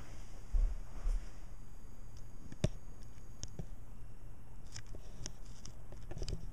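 Light handling noises: a low rumble, one sharp click about two and a half seconds in, and a cluster of small clicks near the end.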